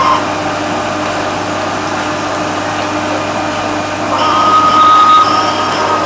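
Whirlpool bathtub's jet pump running, the water churning and bubbling steadily. A held high tone comes in about four seconds in.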